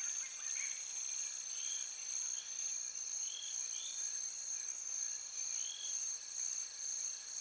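Steady high-pitched insect trilling, with short bird chirps now and then.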